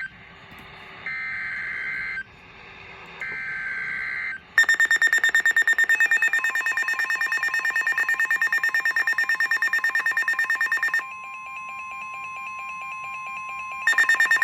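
Emergency Alert System signal: two short buzzing SAME digital header bursts, then a loud, rapidly pulsing electronic alert beep. About eleven seconds in the beeping stops and leaves a steady single warning tone, and the rapid beeping comes back near the end.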